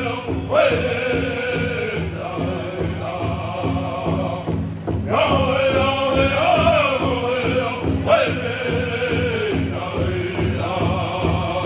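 A powwow drum group singing in unison in high voices while beating a steady rhythm together on one large drum. The song comes in phrases that start high and fall, each restarting high again.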